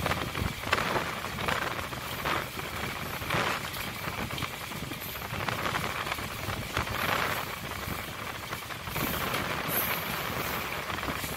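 Running noise of a MEMU electric multiple-unit train heard from on board: a steady rushing, rattling noise of the carriage moving along the track, with irregular brief surges.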